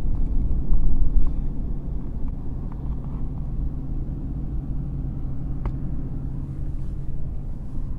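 RAM 3500 pickup truck driving on a snow-covered road, heard from inside the cab: a steady low rumble of the engine and tyres, with a couple of faint ticks.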